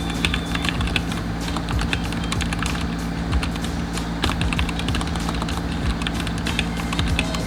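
Typing on a Redragon K530 Draconic mechanical keyboard: a quick, uneven run of key clicks.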